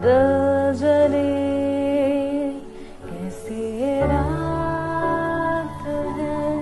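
Woman singing a slow Hindi film song solo, holding long, slightly wavering notes with a short break about three seconds in. Under the voice a steady low accompanying note shifts to a new pitch about four seconds in.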